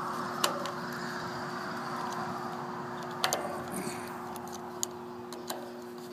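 A screwdriver tightening small screws on the lens cover of an SF6 pressure gauge: a few sharp metal clicks and taps, spaced a second or more apart, over a steady low hum.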